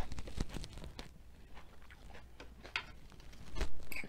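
Light table-handling sounds: crisp lettuce leaves rustling and small clicks, then a fork going into a glass bowl of sautéed spinach, with a louder knock about three and a half seconds in.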